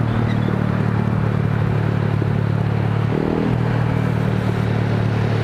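Honda Vario 150 scooter's single-cylinder engine running steadily through an F2Racing CL Long aftermarket exhaust while cruising, a low steady hum over road noise, with a brief change in tone about three seconds in.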